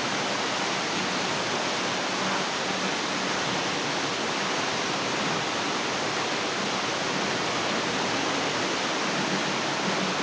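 Small waterfall pouring into a rock pool, a steady, unbroken rush of falling water.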